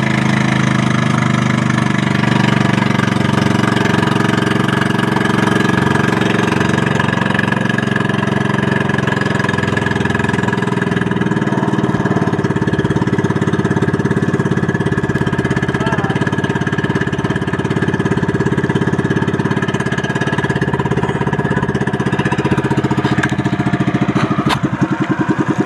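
Motorized outrigger boat's engine running steadily under way. Near the end it slows and its separate firing beats become audible.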